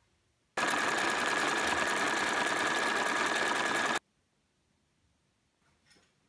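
Singer electric sewing machine running at a steady fast speed, stitching, with a steady high whine. It starts abruptly about half a second in and cuts off suddenly about four seconds in.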